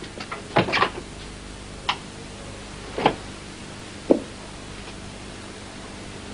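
A few scattered knocks and thumps: a quick cluster just after the start, then three single knocks about a second apart.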